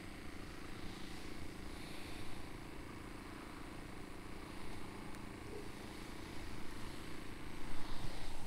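Small quadcopter drone (DJI Mavic Mini) hovering, its propellers giving a steady hum with a couple of constant low tones, a little louder near the end.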